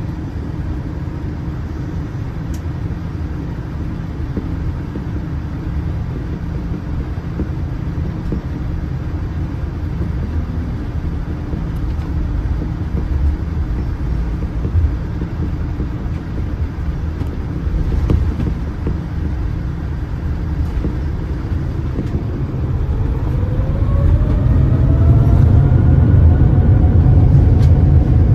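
Boeing 787-9's GEnx-1B turbofans heard from inside the cabin: a steady low rumble as the jet rolls on the ground. About 23 seconds in, the engines spool up, a whine rising in pitch and levelling off while the rumble grows louder, as takeoff thrust is set for a rolling takeoff.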